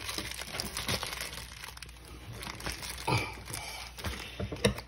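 Plastic Amazon mailer bag crinkling as it is handled and opened, in irregular rustles with louder crackles about three seconds in and near the end.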